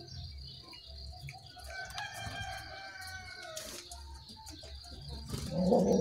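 Bird calls in an outdoor field recording played as a songbird lure: a drawn-out call about two to three seconds in and a louder, rougher burst near the end, over a steady high insect drone.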